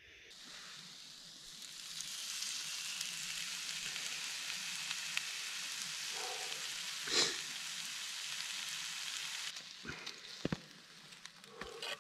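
Steak and mushrooms sizzling on a hot slate over a wood campfire, the sizzle swelling up over the first couple of seconds and then holding steady. One brief louder pop partway through, and a few light knocks near the end.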